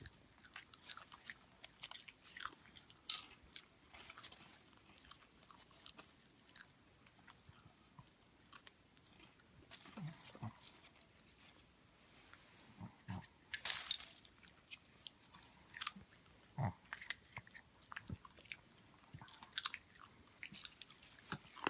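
A pet chewing popcorn: irregular crisp crunches and crackles, with a louder burst of crunching about two-thirds of the way through.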